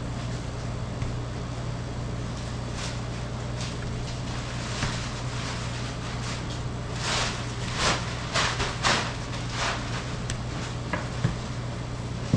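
A steady low hum, with a run of short knocks and scrapes in the second half, the loudest about eight to nine seconds in.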